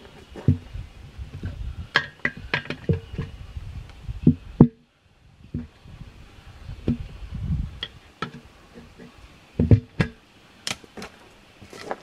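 Tyre bead being levered onto a wheel rim by hand with steel tyre irons: irregular sharp metallic clanks and knocks of the levers on the rim, some ringing briefly, mixed with dull thumps.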